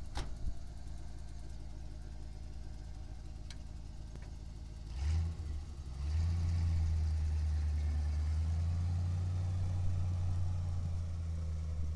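International 1800 grain truck's engine starting up about five seconds in, then running loudly and steadily as the truck drives off.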